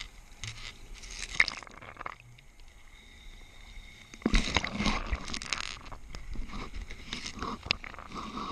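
Scuba diver breathing through a regulator underwater: a hissing breath in, a pause of about two seconds, then a louder rush of exhaled bubbles crackling. Another breath starts near the end.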